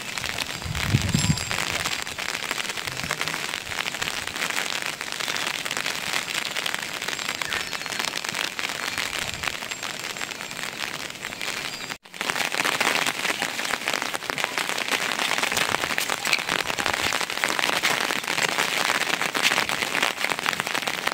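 Rain falling, a dense crackling patter of drops hitting a surface. It cuts out for an instant about twelve seconds in, then goes on a little louder.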